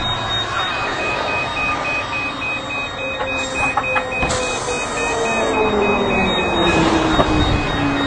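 Loud steady machine noise with a fast, evenly pulsed electronic beeping throughout and a lower tone sliding slowly down in pitch over the second half.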